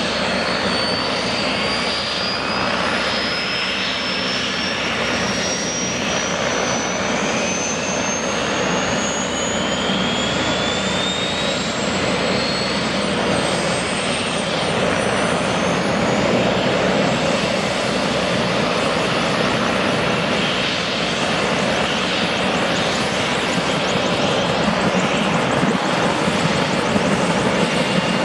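Bell 205A-1 (UH-1H Huey) helicopter's Lycoming T53 turboshaft spooling up during start-up: a turbine whine that rises steadily in pitch for about the first twelve seconds, then holds, over the rush of the accelerating main rotor. The sound grows a little louder and more pulsing near the end as the rotor comes up to speed.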